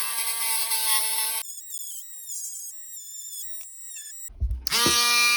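A Dremel-type rotary tool runs with a steady whine as it grinds a finger undercut into a polymer Glock 30SF frame. In the middle the whine gives way to a fainter, wavering higher whine. There is a short low thump before the steady whine returns near the end.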